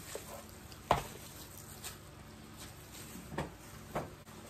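Gloved hands handling things on a kitchen countertop: one sharp knock about a second in, then two softer knocks near the end.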